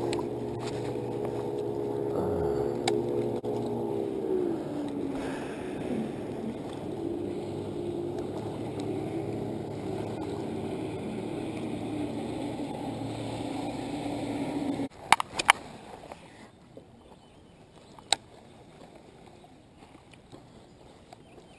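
Motorboat engine running steadily, its pitch dropping about four seconds in as it passes; the sound cuts off abruptly about fifteen seconds in, followed by a few sharp clicks.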